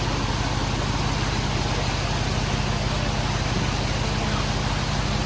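A Jeep Wrangler JL's swapped-in 6.1-litre Hemi V8 running steadily at low revs, its pitch and level holding even.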